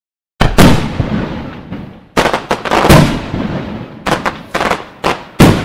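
Fireworks display: aerial shells bursting, loud sharp bangs with a rumbling echo, coming in three quick clusters that start about half a second in.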